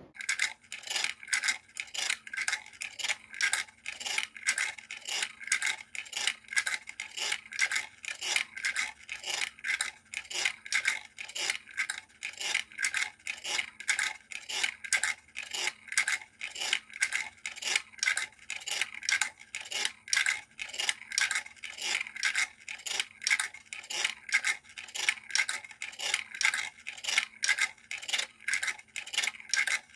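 Prepared cassette with a knife blade and a magnet playing in a TASCAM Portastudio cassette deck: an even run of scratchy clicks about twice a second as the blade turns with the reel, over a faint steady hum.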